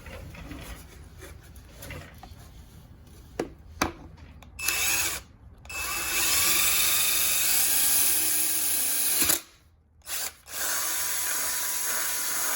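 Electric drill boring a hole: a short burst about four and a half seconds in, then a steady run of about three seconds, a stop and a brief blip, and a second run of about two seconds near the end.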